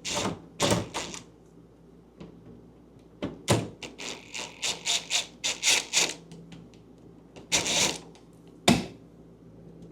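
A series of sharp metallic clicks, about three or four a second for a few seconds, as the screws on a refrigerator door hinge are worked loose, followed by two louder knocks near the end.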